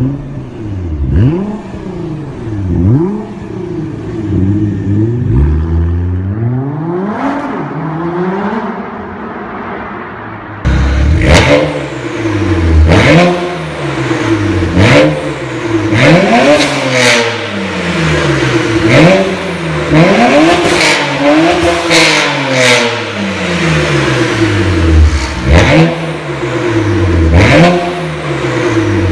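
BMW E82 135i's turbocharged straight-six, tuned and fitted with a modified post-cat exhaust and performance rear silencer, revved repeatedly at standstill: quick blips that rise and fall, with sharp cracks as the revs drop. About ten seconds in it becomes markedly louder, with more frequent blips and cracks.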